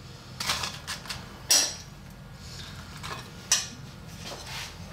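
A serving utensil clinking and scraping against a bowl while a wet bean and avocado salad is spooned out over tortilla chips. There are several separate sharp clinks, the loudest about a second and a half in and again about three and a half seconds in.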